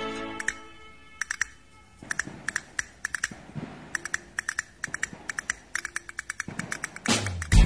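A long run of quick, irregular sharp clicks, several a second, over faint quiet tones. Music fades out at the start and comes back in strongly near the end.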